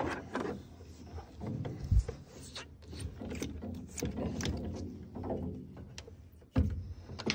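Bow-mount trolling motor being swung down from its stowed position on the mount by hand: a run of clicks and rattles from the bracket and shaft, with a clunk about two seconds in and a heavier clunk near the end as it drops into place.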